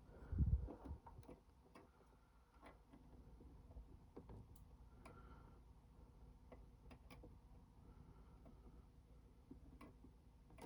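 Faint, scattered small clicks and taps, with one dull thump about half a second in.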